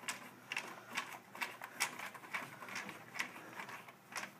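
No. 2 Phillips screwdriver turning a screw into a copier's sheet-metal hard drive bracket: a run of irregular small clicks and scrapes, a few each second.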